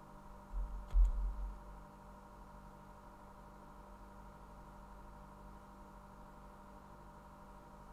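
Two dull, low thumps about half a second apart, the second and louder one with a sharp click, over a steady low hum: a snooker ball, the yellow, dropping into a pocket.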